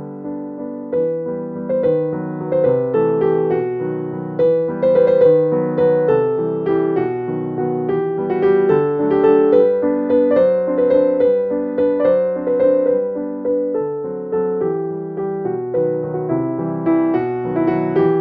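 Background music: a piano melody of separate notes, each struck and fading, at an even, gentle pace.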